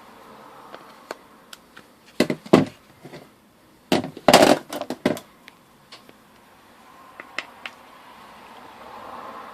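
A series of sharp clicks and cracks from hard plastic being worked by hand, with two loud clusters about two and four seconds in: pieces in the way of the turn signal being broken off the side-mirror backing.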